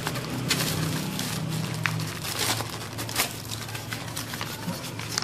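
Paper wrapping of a small parcel crinkling and rustling in the hands as it is turned and squeezed, with short crackles throughout.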